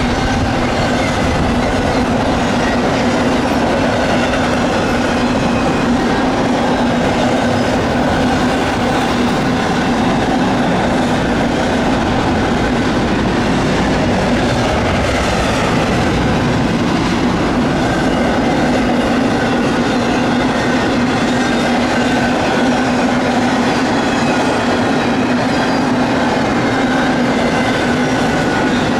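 Intermodal freight train of trailers and double-stack containers rolling steadily over a girder bridge. Its wheels give a continuous rumble and clatter on the rails, with a steady low hum beneath.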